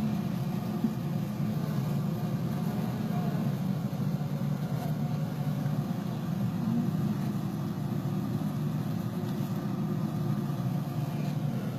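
Honeybee colony buzzing close up inside a top bar hive: a steady, even low hum.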